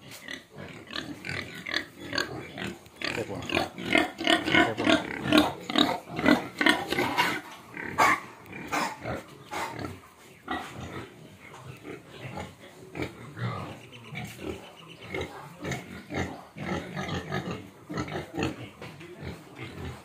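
Domestic pigs grunting with many short calls, with a run of louder, higher-pitched calls between about three and eight seconds in.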